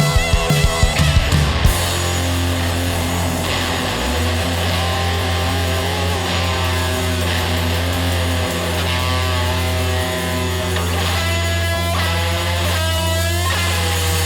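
Electric guitar played through a Pogo Pedals Modern Fuzz pedal: fuzzy sustained notes and chords over a low droning note, with drum hits in the first couple of seconds.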